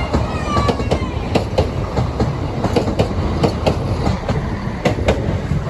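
Train passing over a level crossing: a continuous rumble with rapid wheel clicks over rail joints, and a brief faint wheel squeal about a second in.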